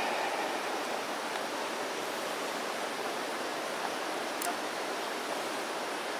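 Primus gas canister stove burner hissing steadily, turned down low for simmering. A spork taps the pot once about four and a half seconds in.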